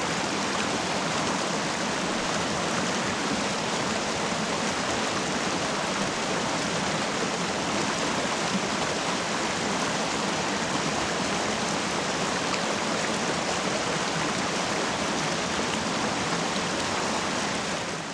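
Creek water rushing steadily over rocks and small riffles, a constant even wash that fades out at the very end.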